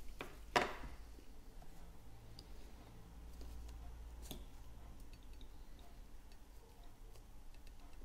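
Small handling clicks and taps from a metal dental hand instrument and a composite syringe worked by gloved hands, with a sharp click about half a second in, another about four seconds in, and faint ticks between, over a low steady hum.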